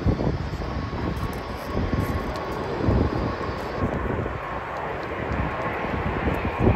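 Jet airliner's engines running on its landing approach, with strong wind gusting and buffeting the microphone. A faint engine whine rises in pitch near the end as the sound grows louder.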